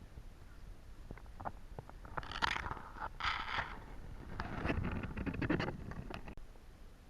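Scraping and rustling in several bursts, preceded by a few light clicks, cutting off abruptly near the end.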